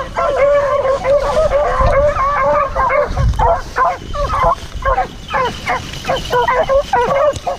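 Beagles baying: overlapping drawn-out, wavering howls, changing about three seconds in to quick short yelps a few times a second.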